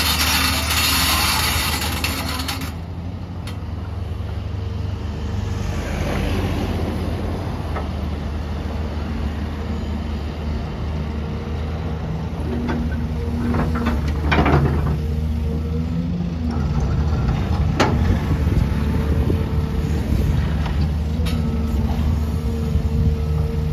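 XCMG XE265CT excavator's diesel engine running steadily under load, its tone stepping up and down as the hydraulics work. There are a couple of short rushing noises and a few sharp clanks. A loud hiss fills the first couple of seconds and cuts off suddenly.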